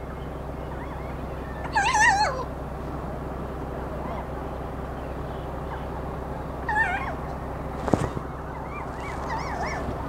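A bird giving short wavering, warbling calls three times: about two seconds in, near seven seconds, and again just before the end. A single sharp click comes near the eight-second mark.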